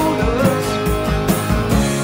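Rock band playing: electric guitars, electric bass and a drum kit keeping a steady beat.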